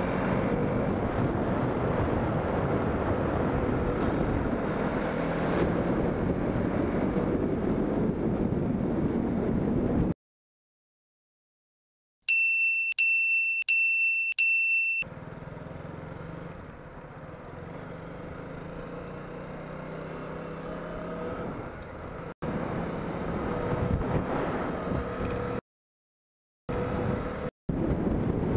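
Wind and engine noise from a moving KTM Duke motorcycle, recorded from the bike. About ten seconds in it cuts to silence, then four quick bell dings ring out one after another, before quieter riding noise returns with several abrupt cuts near the end.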